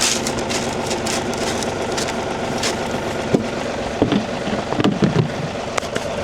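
Tractor engine idling steadily, with a few short clicks and knocks over it in the second half.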